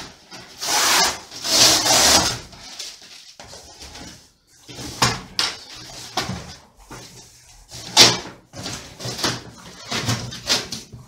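Cardboard packaging of a flat-pack cabinet being torn open and rustled in the first two seconds or so, then chipboard panels knocking and scraping against each other and the box as they are handled, with several sharp knocks.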